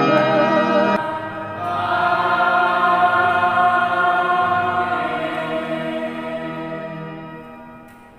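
A man and a woman singing a hymn with an electronic keyboard: a short phrase, then one long held final chord that slowly fades out.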